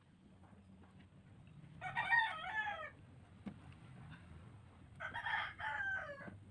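A rooster crowing twice, each crow about a second long with a wavering pitch, the second starting about three seconds after the first.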